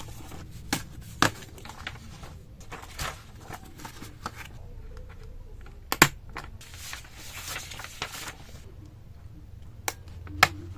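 Printed paper sheets rustling as they are handled, with several sharp clicks from a small plastic desk tool being fiddled with. The loudest click comes about six seconds in, and a stretch of paper rustling follows it.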